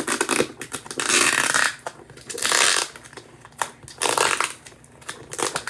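Cardboard packaging being handled and worked open: three short bursts of scraping, crinkling noise with scattered clicks and knocks between them.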